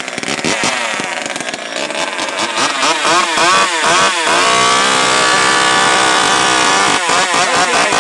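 Two-stroke chainsaw engine running loud, the throttle blipped in quick revs, then held at full revs for about two and a half seconds, then blipped again near the end.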